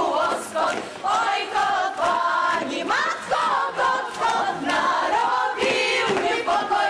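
A choir of men and women singing together in short phrases.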